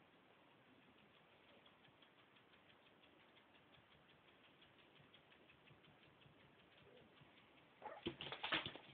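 Faint, rapid clicking from a kitten, several clicks a second. A burst of louder knocks and rustling comes near the end.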